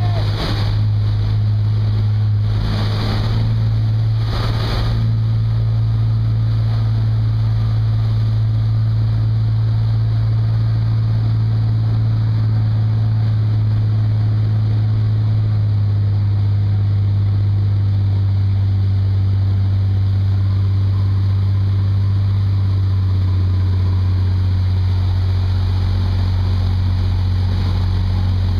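Engine of an Ocean Dynamics Ribworker rigid inflatable boat running steadily under way, a loud low hum over the rush of wake water and wind on the microphone. Its note settles slightly lower a little past halfway, and a few short gusts of wind or spray noise come in the first five seconds.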